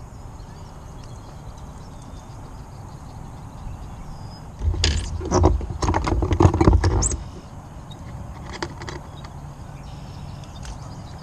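Handling noise in a fishing kayak: a cluster of knocks, clicks and thumps lasting about two and a half seconds near the middle, over a steady low rumble of wind or water.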